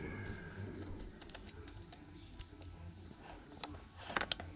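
Light handling of a cardboard parcel, with scattered soft clicks and taps. About four seconds in comes a short run of sharper clicks as a snap-off utility knife is set to the packing tape.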